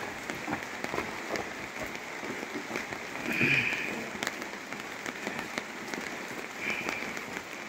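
Rain falling on a wet street: a steady hiss with scattered drop ticks, briefly louder about halfway through.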